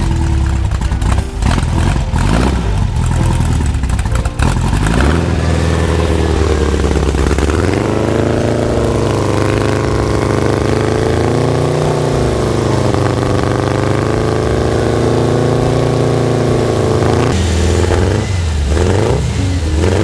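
Air-cooled Volkswagen flat-four engine running just after starting, with the oil pressure just up. It runs unevenly for the first few seconds, is revved up about eight seconds in and held there with slow rises and falls in pitch, then drops back to an uneven run near the end.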